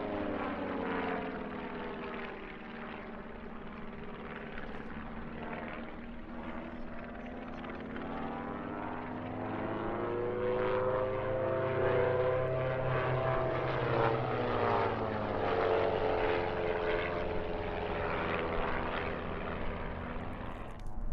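Propeller engines of a formation of Rutan Acro EZ pusher-propeller aerobatic aircraft running overhead. Their pitch slides down and back up several times as they pass and manoeuvre.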